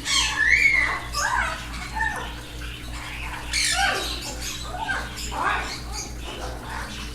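Pet birds chirping and squawking, many short overlapping calls with rising and falling whistled glides, over a steady low hum.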